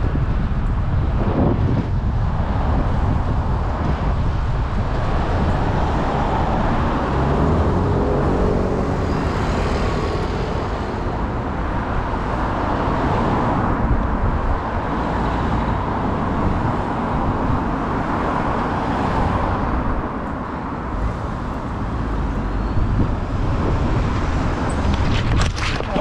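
Road traffic heard from a moving bicycle, with wind rumbling on the action camera's microphone throughout. A brief cluster of sharp clicks or clatters comes near the end.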